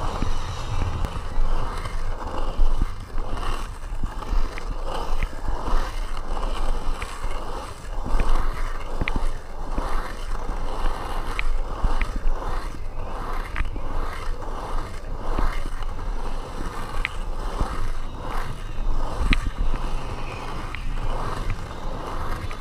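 Skateboard wheels rolling on an asphalt pump track, the rolling noise swelling and fading in a steady rhythm as the rider pumps over the rollers, with a few sharp clicks.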